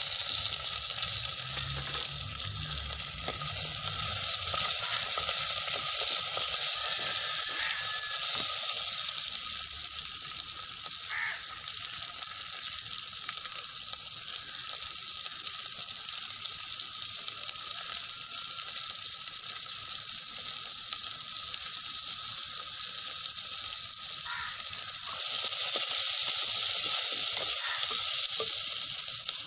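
Sliced white onions frying in hot groundnut oil: a steady sizzling hiss. It is louder for a few seconds early on, eases off, then swells again near the end as the onions are stirred with a wooden spatula.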